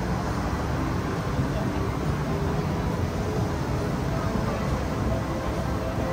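Busy city street ambience: a steady wash of road traffic with the voices of passers-by mixed in.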